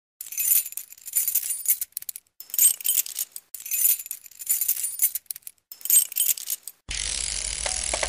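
Title-sequence sound effects: bright metallic jingling and shimmering in several bursts with short gaps. About seven seconds in, a steadier, fuller sound takes over.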